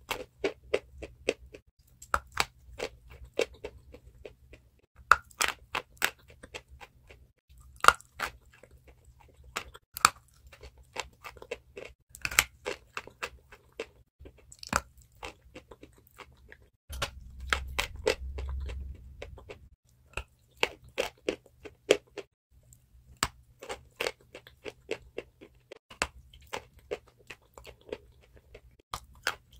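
Close-up crunching of a piece of chalk, bitten off and chewed, giving a steady run of sharp, brittle crunches. About two-thirds of the way through, a low rumble sits under the crunching for a couple of seconds.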